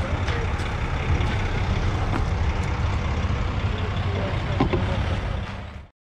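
Diesel engine of a concrete mixer truck running steadily, with a few scattered clicks and scrapes of tools on the slab. The sound stops abruptly just before the end.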